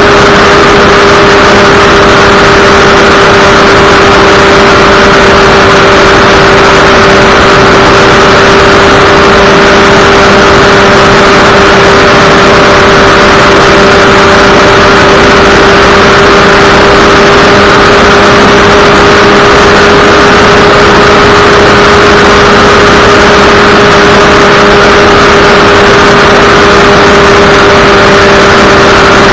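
Kawasaki ZX150 (Ninja 150 RR) two-stroke single-cylinder engine held flat out at top speed, its note steady and unchanging, with heavy wind rush over the microphone.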